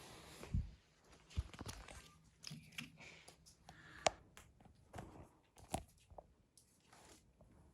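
Scattered soft thumps and rustling with a few sharp clicks and taps, irregularly spaced.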